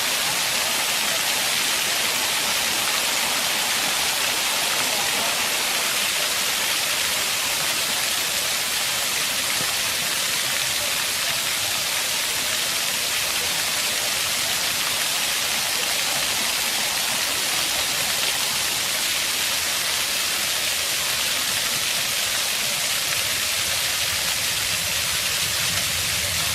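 Fountain water jets splashing in a steady, even rush. A low hum joins in near the end.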